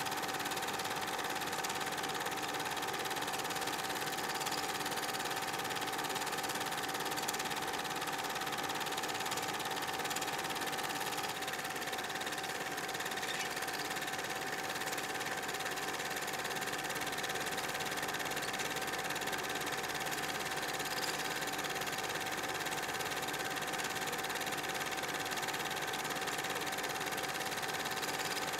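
Steady mechanical whirr of an 8 mm film projector running, with a constant hum-like tone over an even clatter.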